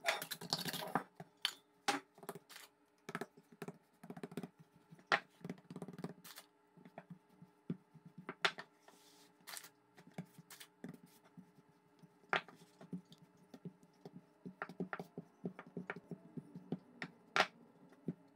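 Hands pressing and patting pizza dough out on a floured wooden worktop: a string of soft, irregular taps and knocks. There is denser handling noise in the first second as the dough is tipped out of a metal mixing bowl.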